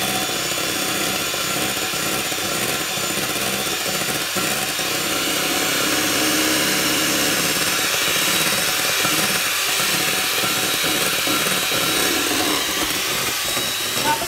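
Emjoi electric hand mixer running steadily, its beaters whipping egg whites in a stainless steel bowl toward stiff peaks for meringue. A short knock sounds near the end.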